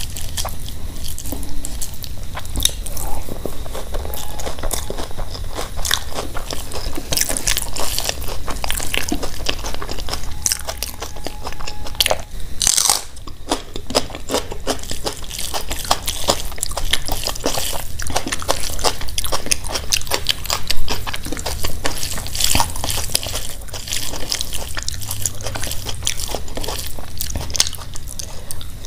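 Close-miked eating sounds: fingers squishing and mixing rice with mashed-potato bharta, and wet chewing and biting of big handfuls, with dense small clicks and smacks throughout.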